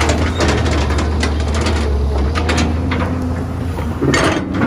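Caterpillar 320B hydraulic excavator's diesel engine running steadily under load, with irregular clatter and knocks of dirt, stones and the steel bucket. About four seconds in there is a louder scraping rush as the bucket digs back into the soil.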